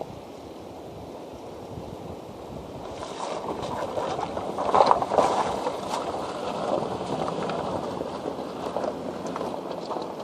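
Flooded river water rushing, with splashing that grows louder about three seconds in and peaks near the middle.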